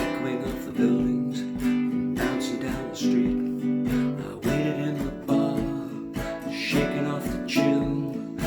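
Acoustic guitar strummed in a steady rhythm over a regular low beat: an instrumental passage of a song.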